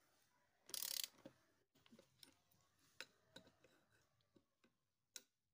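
Faint hand-tool work on a scooter engine's flywheel nut with a ratchet wrench: a short burst of ratchet clicking about a second in, then scattered light metallic clicks and taps.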